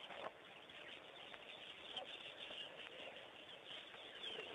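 Faint outdoor wildlife ambience: a low hiss with a few small bird chirps and a couple of light clicks.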